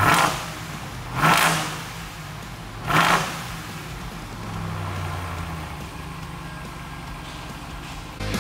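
Ram 1500 TRX's supercharged 6.2-litre Hemi V8 revved in three short blips about a second and a half apart, then settling to a steady idle.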